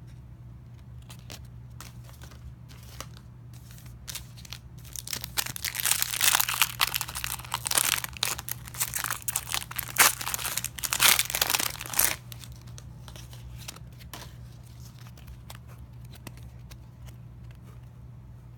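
A 2016 Panini Optic football card pack wrapper being crinkled and torn open, loud and crackly for about seven seconds in the middle, with light clicks of cards being handled before and after. A steady low hum runs underneath.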